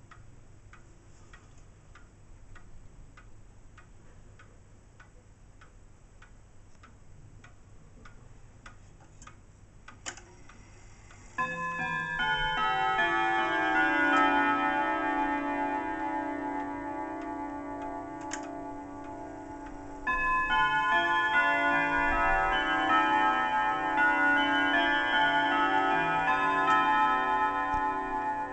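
A German triple-chime wall clock ticking steadily. About eleven seconds in, just after a click from the movement, it begins playing a multi-note chime melody of ringing tones, and a second, louder phrase starts about twenty seconds in.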